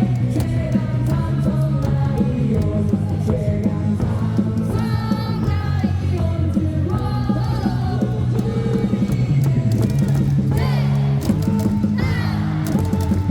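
Loud amplified cheering song at a baseball stadium, with singing over held bass notes and many sharp claps throughout.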